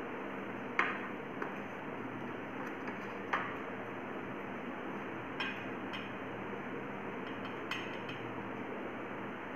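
Small plastic bowls clinking and tapping against a stainless steel plate, about half a dozen light knocks spread apart, over a steady hiss.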